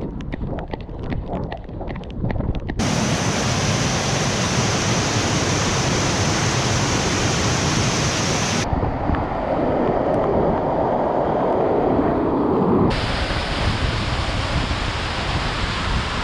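Running footsteps slapping on a wet road for the first few seconds, then the steady rush of a waterfall and whitewater cascade. The rush changes character abruptly twice, about halfway and two-thirds through.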